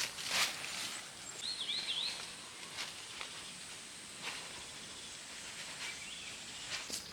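Forest ambience: a steady high hiss under a few short rustles on the ground, with one short warbling bird call about a second and a half in.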